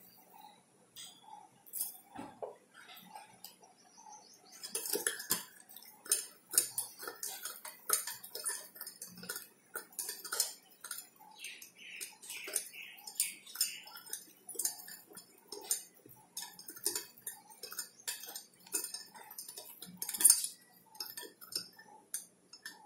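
Plastic spoon stirring sugar into water in a glass tumbler: rapid, irregular clinks and scrapes against the glass as the third spoonful of sugar dissolves, with one louder clink about twenty seconds in.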